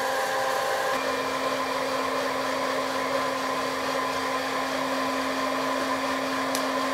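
Hot-air popcorn popper, 1200 W, used as a fluid-bed coffee roaster, running steadily: its fan blows hot air up through a load of green coffee beans with an even whirring hum over a rush of air. A single brief tick sounds near the end.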